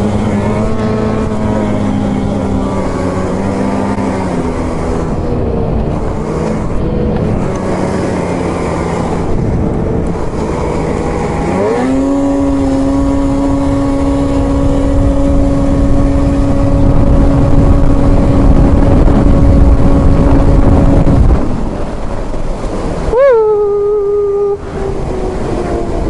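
Snowmobile engines running at speed on the trail, with heavy wind rush. About twelve seconds in, the engine note climbs quickly and holds higher under full throttle, then drops away about twenty-one seconds in; near the end a brief engine note falls sharply.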